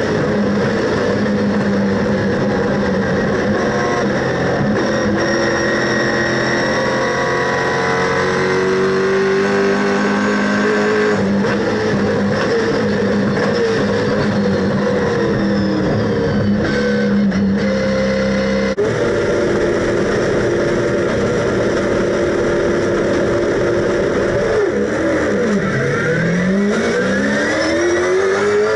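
Holden Super3 race car's V8 engine heard from inside the cockpit at racing speed. Its note climbs with the revs and drops in steps at each gear change. Near the end it falls sharply under braking and climbs back out of the corner.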